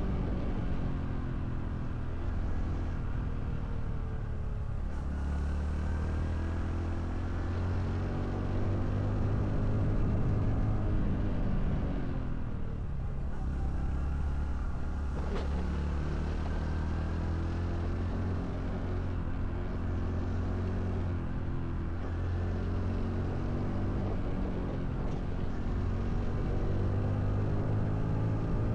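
Honda CT125 Hunter Cub's 125 cc single-cylinder four-stroke engine and exhaust running while riding. Its pitch drops and climbs again a few times as the bike slows and picks up speed.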